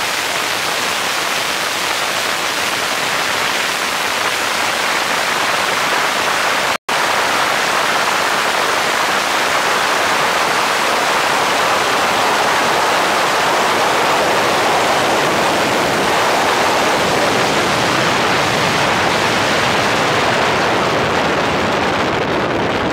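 Wind rushing over the microphone of a camera mounted on the outside of a fast-moving car, a steady loud hiss in which no clear engine note stands out. It cuts out for an instant about seven seconds in, and its hiss thins slightly near the end.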